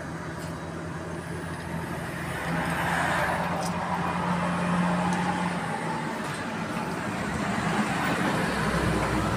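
Road traffic passing: a vehicle's engine hum and tyre noise swell about three seconds in and fade, and another vehicle approaches near the end.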